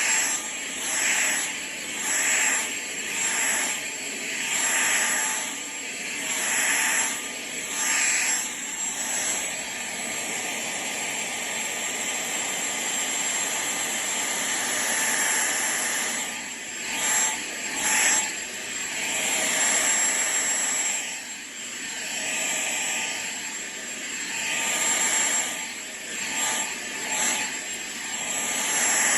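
An electric household appliance's fan motor running steadily with a high whine and rushing air. For the first several seconds the sound swells and fades every second or two.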